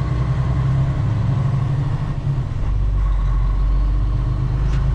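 Western Star semi truck's diesel engine running while the truck drives slowly, heard from inside the cab: a steady low drone whose deepest rumble grows stronger a little past halfway.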